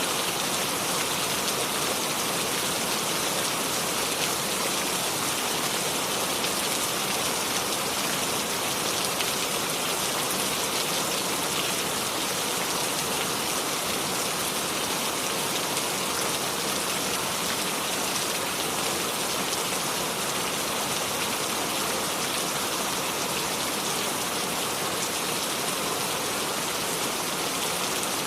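Steady rain falling, an even hiss of many raindrops with no thunder.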